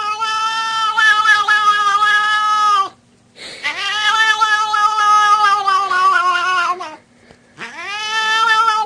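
Cat yowling in long, drawn-out calls. Each call is held steady and then drops in pitch at its end, with short breaks about three and seven seconds in.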